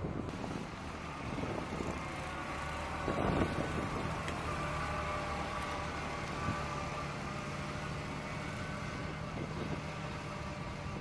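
Engine of a flight-deck firefighting truck running steadily as the truck drives slowly away across the deck.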